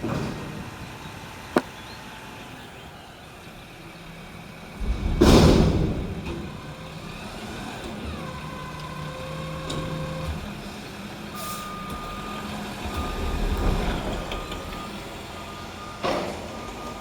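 Mack McNeilus front-loader garbage truck running, with a loud hiss of released air about five seconds in. In the last five seconds its reversing alarm beeps repeatedly over the engine.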